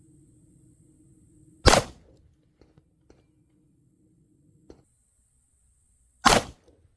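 Two .357 Magnum revolver shots from a Colt King Cobra, about four and a half seconds apart, each a sharp, loud crack with a short echo tail. A few faint clicks fall between them.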